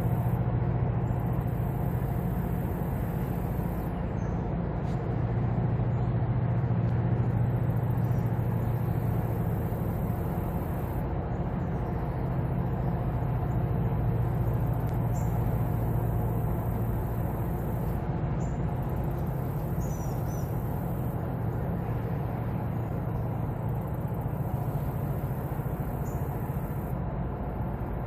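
Towboat's diesel engines running with a steady, low, unchanging drone while pushing a loaded barge tow upriver.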